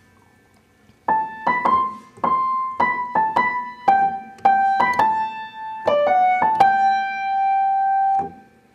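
Piano playing a short melody of single notes, one at a time, starting about a second in; the last note is held for over a second and then stops.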